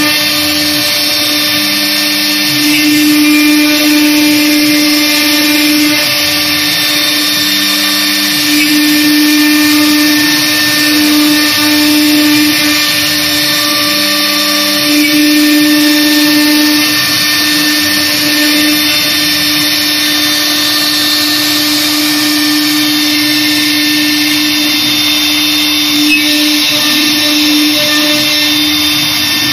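Air-cooled CNC router spindle running at a steady high speed while its bit routes grooves in a wooden board: a constant whine over the hiss of cutting, swelling slightly in loudness a few times.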